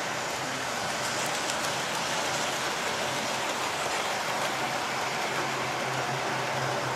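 Model trains running round the layout's track: a steady rolling hiss and rattle of small wheels on the rails, with a steady low hum underneath.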